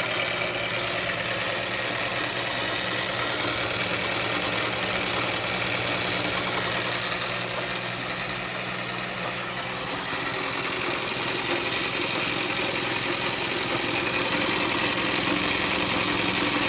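Singer 47W70 industrial darning machine running at a steady speed, its needle stitching a rapid, even rhythm through denim as the fabric is guided by hand.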